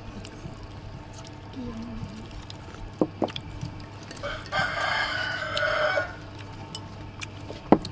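A rooster crows once, a little over four seconds in, the call lasting under two seconds. A few sharp clicks come shortly before it and again near the end.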